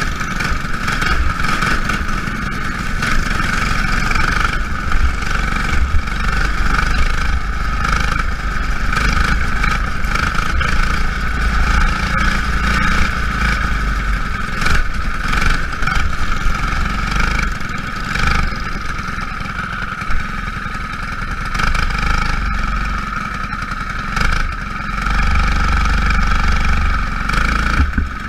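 Small racing engines of Jr Lite race cars running laps in a feature race, a steady high-pitched engine drone that rises and falls slightly as the cars pass.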